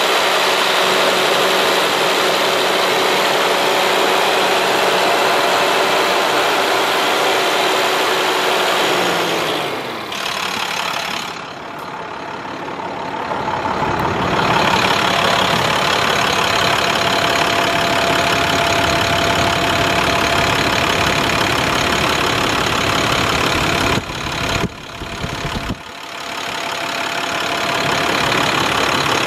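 International MaxxForce DT inline-six diesel engine idling steadily, heard with the hood open. A steady whine in the sound falls in pitch and fades about a third of the way in.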